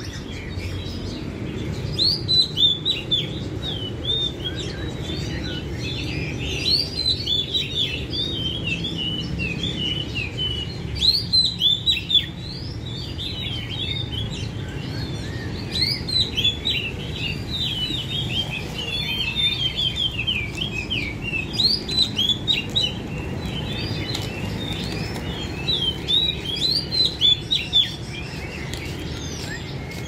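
Caged songbirds chirping and twittering in quick, overlapping bursts, over a steady low background rumble.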